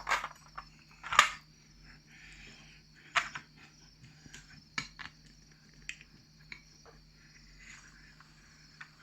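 Scattered sharp clicks and knocks of a padlock and small tools being handled and set down on a workbench, the loudest about a second in.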